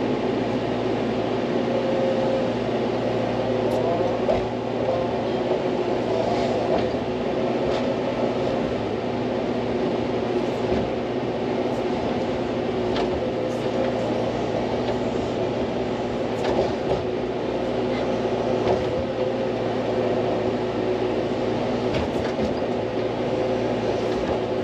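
Hydraulic excavator's diesel engine running steadily at working revs, with a wavering hydraulic whine and occasional light knocks.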